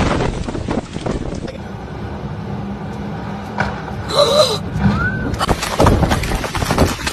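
Storm wind gusting hard on the microphone, easing off for a few seconds in the middle under a steady low hum, then picking up again near the end.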